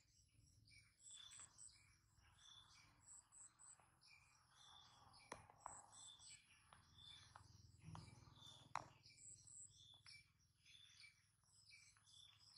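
Near silence: faint outdoor ambience with small birds chirping over and over in the background, and a few soft clicks.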